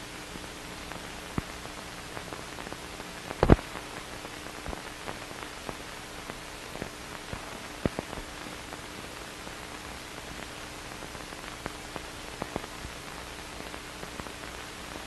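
Hiss and crackle of an old film soundtrack with no narration: steady hiss, a faint steady hum, and scattered clicks and pops, the loudest about three and a half seconds in.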